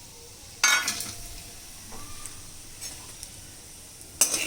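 Raw peanuts tipped into a little hot oil in a pan: a sudden burst of sizzling that settles into a quieter steady fry, with a sharp clatter of stirring against the pan near the end.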